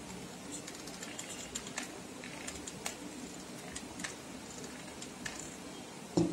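Scattered light clicks and taps of a hot glue gun being handled and worked over a woolen yarn craft piece on a tabletop, with one louder knock near the end.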